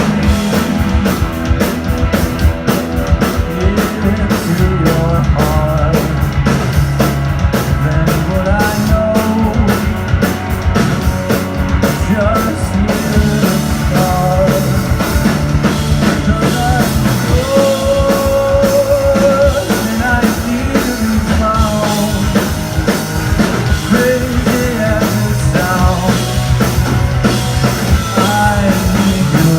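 Rock band playing live with drum kit and a stepping bass line, loud and steady. Cymbals crash densely through the first half, and a held, wavering high note sounds a little past the middle.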